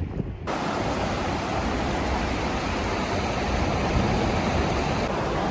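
Steady rush of flowing river water, starting abruptly about half a second in.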